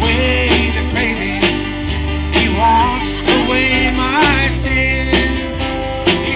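Live country-gospel band playing: strummed acoustic guitar, bass and drums, with a high melody line that bends and slides over the top.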